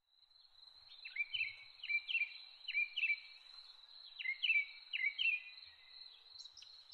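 A small bird calling in about a dozen short chirps, often in pairs, over the steady high-pitched buzz of insects in a garden.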